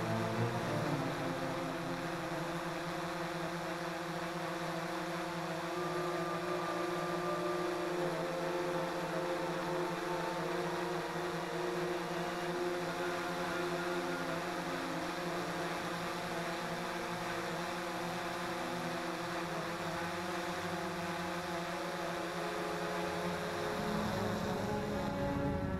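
XK X380 quadcopter's brushless motors and propellers whirring steadily in flight, heard from the craft's own camera, with several tones whose pitches shift slightly as the motors change speed.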